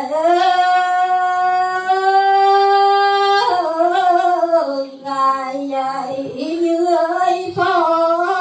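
A woman singing a Tày lượn folk song. She holds one long, steady note for about three seconds, then sings a phrase of shorter, wavering, ornamented notes.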